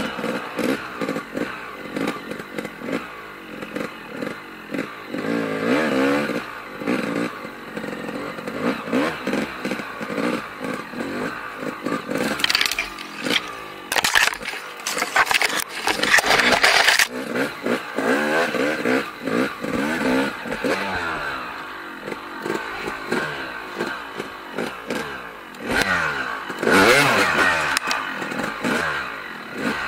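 Dirt bike converted to a snowbike with a track kit, its engine revving up and down while riding. There are louder, harsher stretches about halfway through and again near the end.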